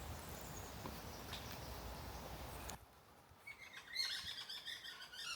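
Faint steady outdoor background noise that cuts off abruptly about three seconds in, followed by birds chirping in a quick series of short, high calls.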